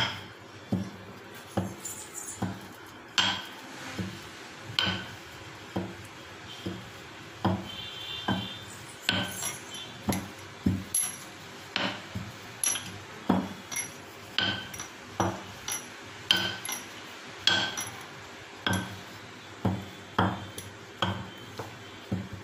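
Repeated sharp taps with a short metallic clink, about one to two a second, as oiled parotta dough is pressed and stretched paper-thin by hand on a countertop.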